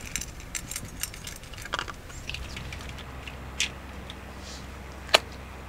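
A small dog eating dry food from a metal bowl, with scattered clinks and crunches that thin out after about two seconds. There is a single sharp click near the end.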